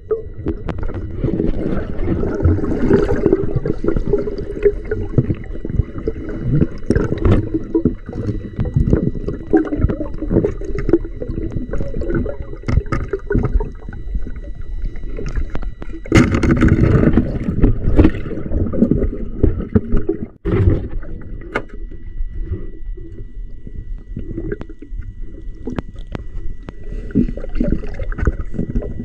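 River water sloshing and gurgling close around the camera, muffled and low, with many small knocks and clicks. A faint steady high tone runs underneath, and the sound drops out briefly about twenty seconds in.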